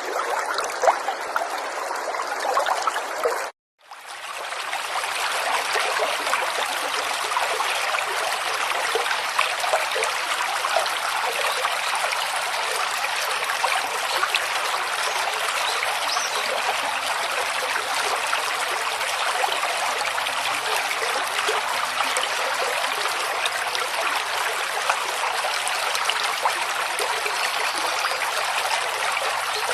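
River water flowing and trickling steadily. About three and a half seconds in, the sound cuts out for a moment and fades back in, then runs on with more hiss in the high end, as at a splice between two recordings.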